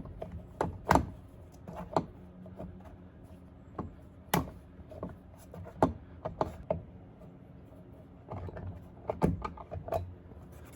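Irregular clicks and knocks of hand work on the liftgate, as the small plastic trim cover over the Jeep Wrangler TJ's rear-glass hinges is taken off. The loudest knocks come about one second in and at about four and a half seconds.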